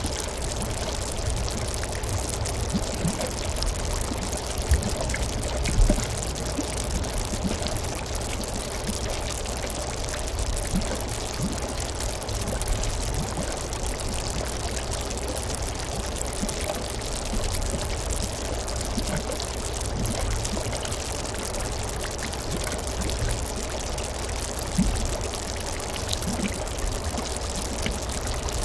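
Boiling geothermal pool: a dense fizz of tiny bubbles popping at the surface, with deeper mud bubbling in the background. Now and then a louder plop stands out, twice close together about five and six seconds in.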